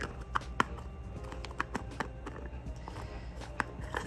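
Scattered light clicks and taps of plastic dip powder jars and lids being handled, over faint background music.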